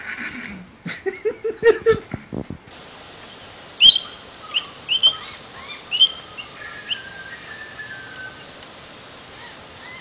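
Short, rapid animal vocal sounds for the first couple of seconds. Then a bird chirps in a series of short, sharp calls about half a second to a second apart, the first and loudest about four seconds in, followed by a fainter drawn-out call.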